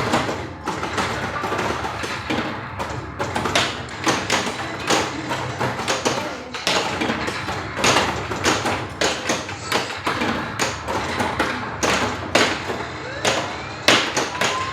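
Bally Safe Cracker pinball machine in play: many quick, irregular knocks and clicks of flippers firing and the ball striking targets and bumpers, over the machine's own sound effects and music, with gliding tones near the end.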